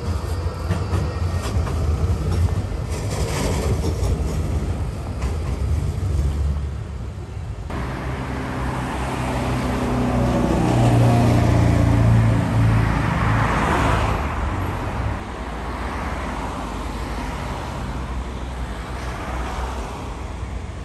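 City street traffic: a tram runs past with a low rumble. About eight seconds in the sound changes abruptly, and a road vehicle passes close by, rising to its loudest a few seconds later and then fading into general traffic noise.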